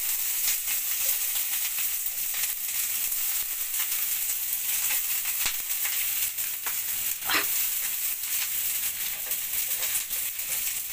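Hot oil sizzling and crackling steadily in a frying pan, with one short, sharper scraping sound about seven seconds in.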